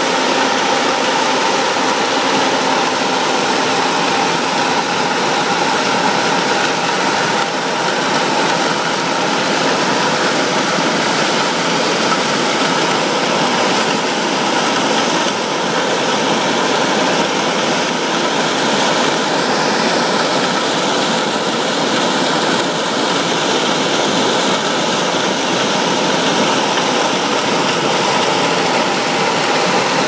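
John Deere S680 combine running steadily as it harvests corn: its engine and threshing machinery make a loud, even hum with a few steady tones over a dense rushing noise.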